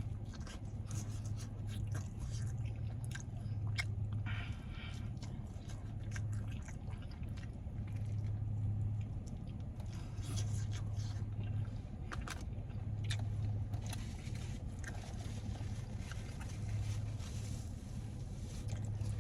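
Close-miked chewing of naan, rice and curry, with many small mouth clicks and crunches scattered through, over a steady low hum.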